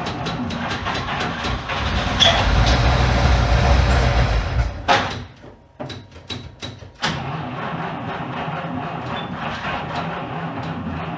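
1947 Cadillac Series 62's flathead V8 running on its first start after 47 years standing: it picks up and runs louder about two seconds in, nearly dies with a few sputters about five seconds in, then catches again about seven seconds in and runs steadily.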